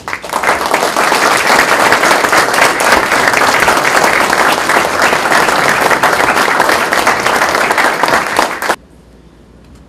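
Audience applauding, a dense clatter of many hands clapping that stops suddenly near the end.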